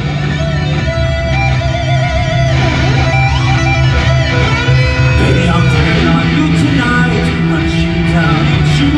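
Loud rock music with electric guitar: wavering, vibrato-laden guitar lines over a sustained low bass.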